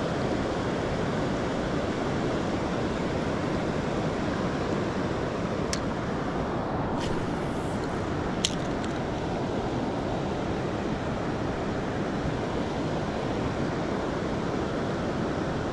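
Steady rushing of fast river water over rocky shoals, mixed with wind on the microphone. Two short sharp clicks come about six and eight and a half seconds in.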